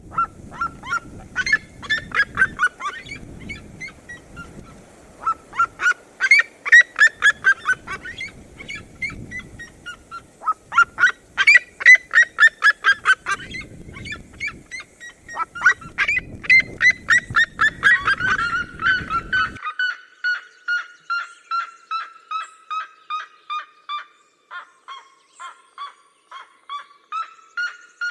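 Red-legged seriemas calling in duet: loud, rapid series of yelping notes in repeated bouts, ending in one long run of notes that slowly drops in pitch and fades near the end.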